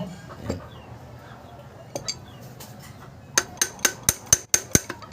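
A quick series of about seven sharp metallic taps and clinks in the second half, metal parts being tapped or knocked together while reassembling an alternator.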